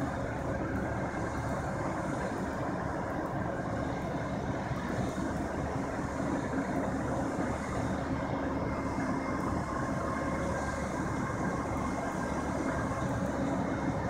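Heavy diesel engines of tow trucks and a CAT excavator running steadily.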